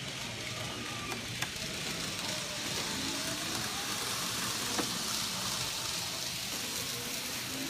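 N-gauge model train running on the layout's track: a steady hissing whir of wheels and motor that swells slightly mid-way, with a couple of small clicks and faint voices in the background.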